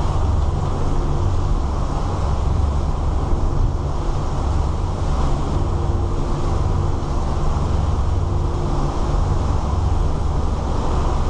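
A 34-foot Sea Ray cruiser under way through rough water: a steady low rumble of its engines, with wind and rushing water over it.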